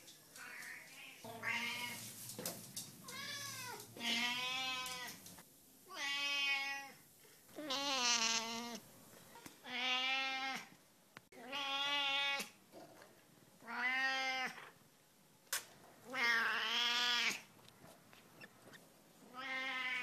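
A Siamese-type cat meowing over and over, about ten drawn-out cries roughly every two seconds, each with a wavering pitch that makes it sound like a bleating lamb.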